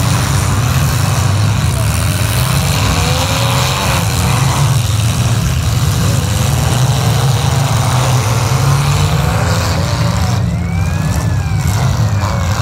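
Several demolition-derby compact cars running and revving at once in a loud, steady engine drone. Engine pitches rise and fall, most clearly near the end.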